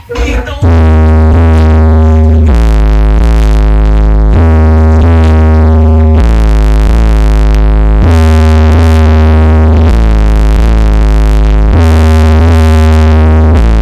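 Loud electronic music played through a home-built sound system with a subwoofer: held synthesizer chords over heavy deep bass notes that switch between two pitches about every two seconds, starting a little under a second in.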